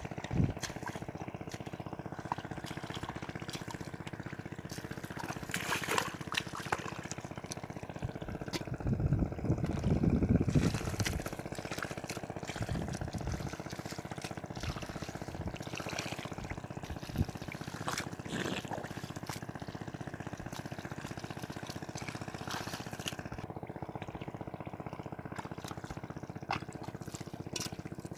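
Feet squelching and sloshing through wet mud and shallow water, with small splashes and water trickling and dripping, loudest for a couple of seconds around the middle; a faint steady hum runs underneath.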